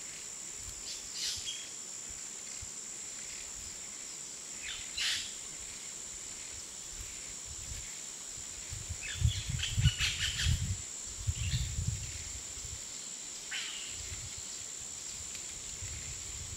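Insects droning on one steady high note, with scattered short bird chirps, heard from a car moving through forest with the window open. Low rumbling bursts of wind on the microphone come around the middle.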